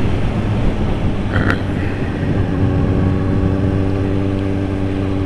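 Suzuki GSR750's inline-four engine running at steady revs through an SP Engineering tri-oval aftermarket exhaust fitted with a baffle, with a brief high chirp about one and a half seconds in.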